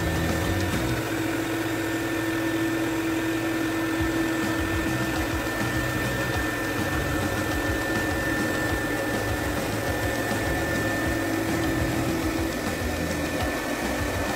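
Commercial carpet extractor's vacuum motor running steadily: a constant whir with a hum and a thin high whine.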